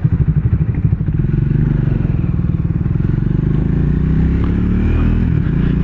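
Triumph Speed 400's single-cylinder engine idling in even pulses, then revving as the bike pulls away from a stop. Its pitch rises, drops at an upshift about three seconds in, and climbs again.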